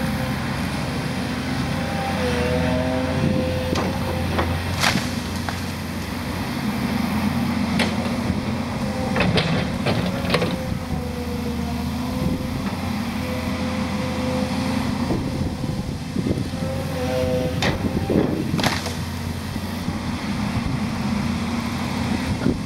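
Volvo 210 excavator's diesel engine running under load, with a wavering hydraulic whine that comes and goes as the boom and bucket move. Several sharp cracks and knocks as the bucket and thumb grab and drop brush and logs.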